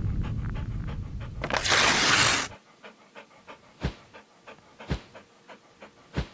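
A low rumble ending in a loud whoosh about two seconds in, then a dog panting in short, quick breaths, about three a second.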